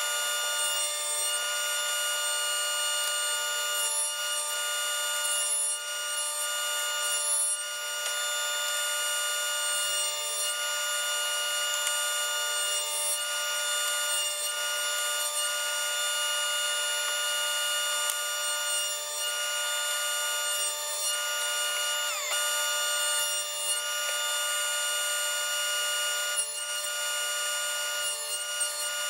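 Table saw with a stacked dado blade running with a steady whine of several pitches while cutting a wide notch in a board, with small dips in loudness every second or two as the board is moved over the blade. About two-thirds through, the pitch briefly drops as the blade bogs under the cut, then recovers.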